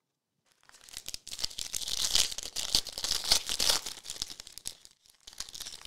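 Foil wrapper of a 2022 Chronicles baseball card pack being torn open and crinkled by hand. A dense crackle starts about half a second in and runs about four seconds, then a shorter burst comes near the end.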